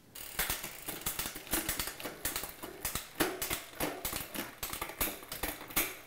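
Bicycle drivetrain turned by hand on a workstand: the chain running over the rear cassette and derailleur pulleys with a dense, rapid clicking and rattling as the gears are shifted. The shifting works well as set up at the factory.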